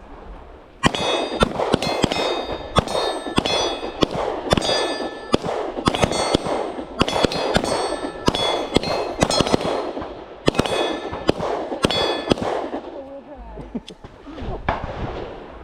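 A rapid, uneven string of pistol shots from several shooters firing at once, many followed by a metallic ringing. The shooting starts about a second in, runs for about eleven seconds, then thins to a few scattered shots.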